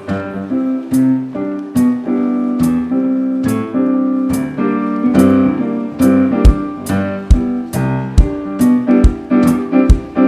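Live band opening a song, led by piano chords. A kick drum joins about six seconds in, keeping a steady beat a little faster than one per second.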